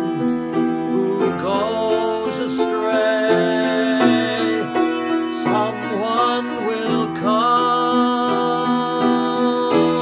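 A man singing a slow ballad in long, held notes while accompanying himself on piano chords.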